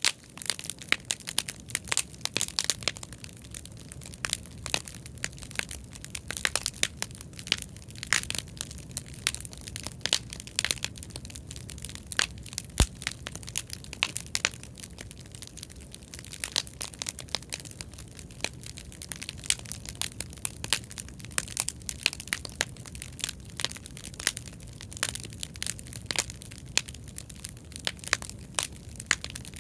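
Bonfire of scrap lumber offcuts burning, with many irregular sharp crackles and pops over a steady low rumble of flame.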